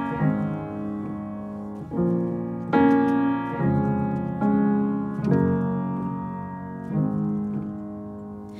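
Upright piano playing slow chords, each struck and left to ring and fade, about one every one to two seconds.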